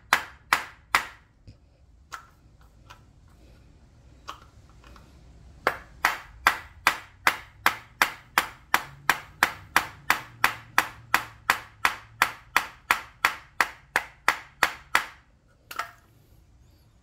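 A nine-pound hammer striking repeatedly, driving a stuck brass ring out of a throttle-body adapter plate set over a hole in a wooden block. Three blows come at the start, then a pause of several seconds, then a long run of steady blows at about two to three a second, and a single last blow.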